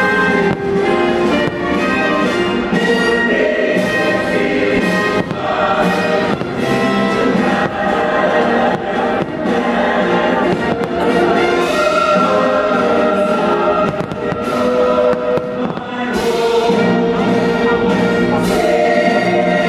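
Orchestral show music with singing, and aerial fireworks shells bursting over it many times.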